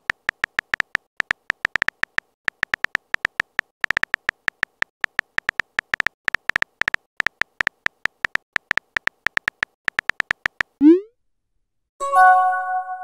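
Phone keyboard key-click sound effects, several taps a second, as a text message is typed out. They stop just before eleven seconds in, when a short rising swoosh marks the message being sent. About a second later a bell-like notification chime of several tones rings and fades.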